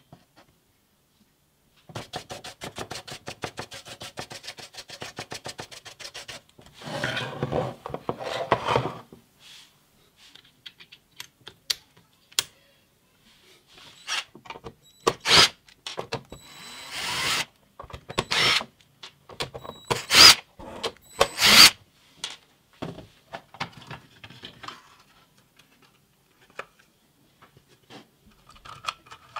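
A screwdriver undoing the screws in the plastic base of a Black & Decker battery charger and the housing being opened. There is a rapid, even run of clicking, then scraping, then a series of sharp plastic clacks and knocks near the middle.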